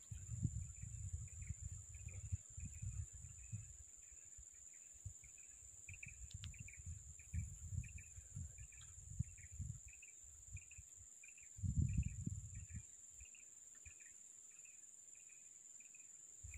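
Riverside insect ambience: a steady high-pitched drone with a short chirp repeating about three times a second, under faint, irregular low rumbles.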